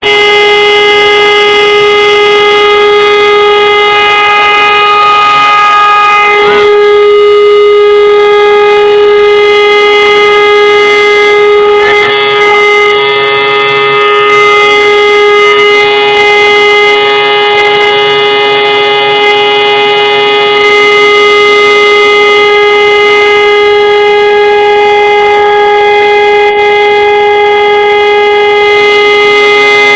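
Civil defence siren sounding one loud, steady tone that holds its pitch without rising or falling: the all-clear (Entwarnung) signal, a continuous one-minute tone, given in a siren test.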